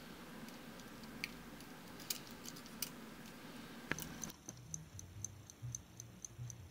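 Small metal clock parts clicking and clinking as they are handled. After a cut about four seconds in, a clock movement ticking evenly at about four ticks a second, with dull low knocks from handling.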